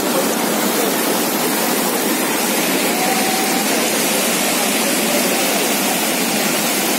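Muddy floodwater rushing over a bridge deck and churning around people's legs, a steady loud rush that does not let up.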